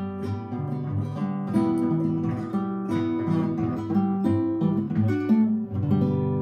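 Background music: an instrumental passage of plucked and strummed acoustic guitar that ends on a chord ringing out near the end.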